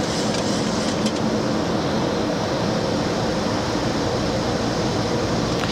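Steady rumble and rush of air in an airliner cockpit, with the landing gear just selected down and extending into the airstream on approach. There is a faint click about a second in.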